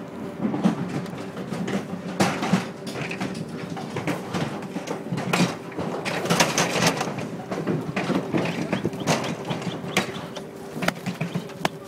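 Cattle clattering out of an overturned livestock trailer, their hooves knocking and scraping on its metal floor and ramp in irregular clanks, over a steady low hum.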